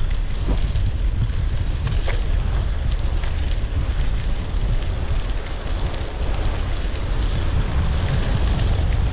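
Wind buffeting the microphone of a moving bicycle, a steady heavy rumble, over the crackle of the Zizzo Forte folding bike's tyres rolling on a loose gravel road. Small stones give a few sharp ticks.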